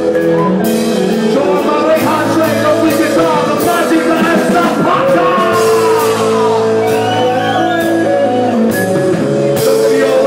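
Live rock band playing loud, with a singer singing into a microphone over electric guitar and a steady beat of sharp hits.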